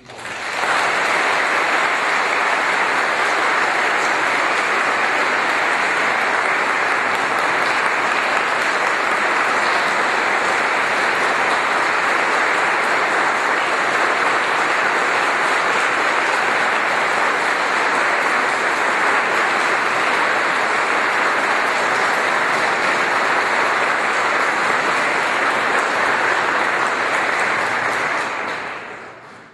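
A church congregation applauding: sustained clapping that swells up at once, holds steady, and fades away near the end.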